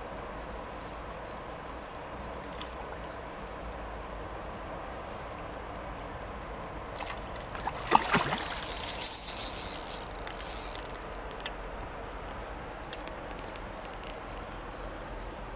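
A hooked fish thrashing at the water's surface while it is landed: a sharp splash about halfway through, then a few seconds of churning splashing that dies away. Behind it, a steady wash of river noise with small scattered clicks.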